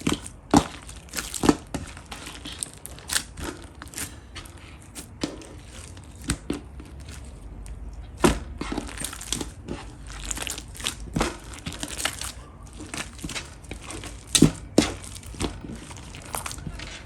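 Pastel pink slime being played with by hand, giving irregular sharp clicks and crackles, a few of them much louder.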